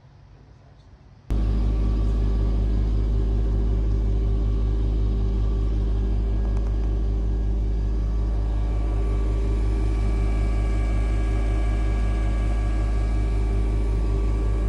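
Heavy diesel engine of an earthmoving machine running steadily under power. It cuts in abruptly about a second in, with a deep rumble and a fast steady pulse.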